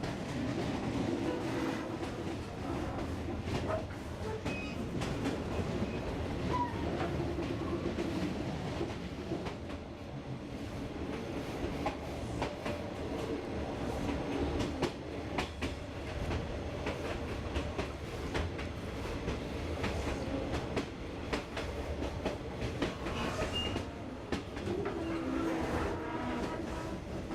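Train running on the rails: a steady rumble with wheels clicking over rail joints again and again.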